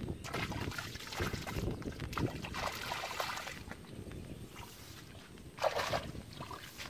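Shallow muddy water splashing and sloshing under wading feet and hands setting a bamboo fish trap, with a louder splash near the end.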